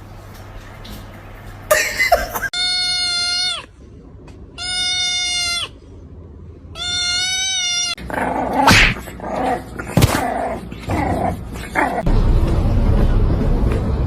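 A cat giving three long, drawn-out meows of about a second each, held at an even pitch, with pauses between them. After that come a few knocks and mixed noise.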